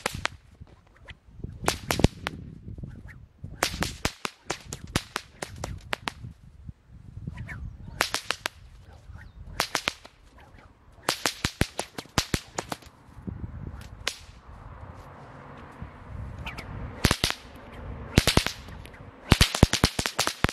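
A whip cracking in the 'machine gun' routine: single figure-eight cracks alternate with volleys of several cracks fired in rapid staggered succession, like a machine gun. The whoosh of the swinging whip runs between the cracks.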